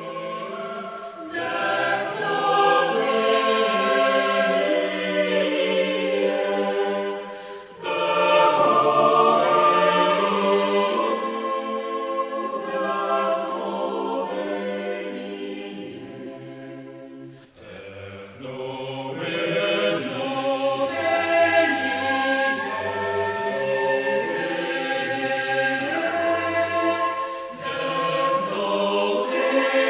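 Choir singing slow, sustained chords in long phrases, with brief breaks between phrases about 8, 17 and 28 seconds in.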